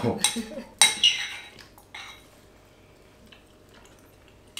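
Metal spoons clinking against ceramic bowls: two sharp clinks with a brief ring about a second in, a faint tick a moment later, then quiet.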